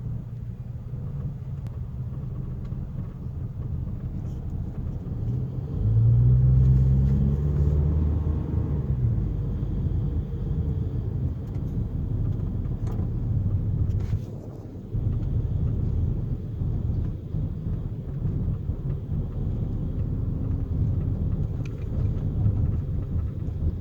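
Low droning rumble with a pitched hum from the front end of a 1997 Saturn SL2 on the move. The owner hears this noise only when coasting; it goes away under throttle or braking. The hum swells louder about six seconds in, fades over the next few seconds, and the sound dips briefly midway.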